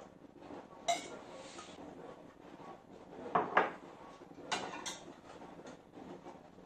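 Ceramic plates clinking and a metal spoon knocking against a cooking pot while food is dished out: one sharp clink about a second in, two louder knocks about halfway, then two more clinks.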